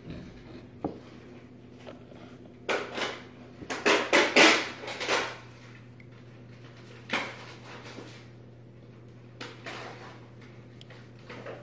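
Handling noise from a plastic tub of Orbeez on a table: a few knocks and scraping rustles, the loudest cluster about four to five seconds in, over a low steady hum.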